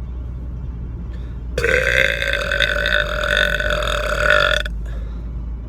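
A man's long, drawn-out burp of about three seconds, starting about a second and a half in and cutting off sharply, over the steady low rumble of the car cabin.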